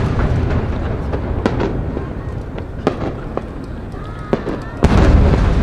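Aerial firework shells bursting: a deep boom fading out in a long rumble, a few sharp pops, then another loud boom just before the end.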